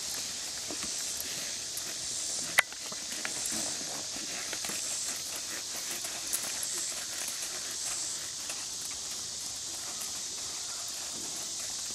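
Scattered horse hoofbeats on soft arena dirt at a walk and trot, over a steady high hiss. One sharp click about two and a half seconds in.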